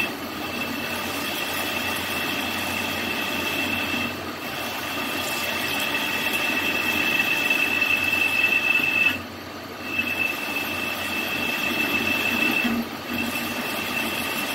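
Metal lathe parting off with a blade cutoff tool: a steady high-pitched squeal from the tool cutting into the spinning workpiece, over the running lathe. The squeal drops out briefly three times, longest about nine seconds in, as the cut pauses.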